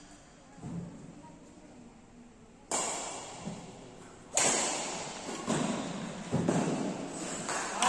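Badminton rally: rackets striking a shuttlecock about four times, a sharp crack every second or two, each ringing on in a large metal-walled hall. A soft thud under a second in.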